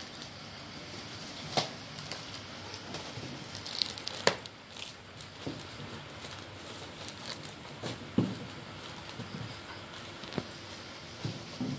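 Plastic bags crinkling around lidded plastic containers as they are picked up and set down on a glass tabletop, with a few sharp knocks, the loudest about four seconds in.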